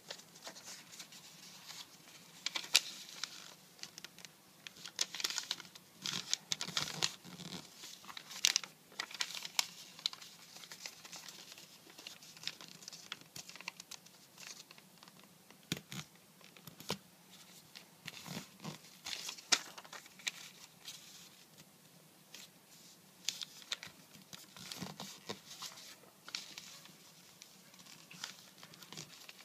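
Origami paper being handled and folded by hand: irregular rustling and crisp crinkling, with sharp crackles as the paper is bent and creased.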